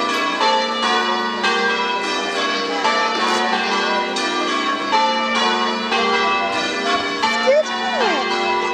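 Church bells ringing a peal: several bells of different pitch struck one after another, about two strokes a second, their tones overlapping and ringing on.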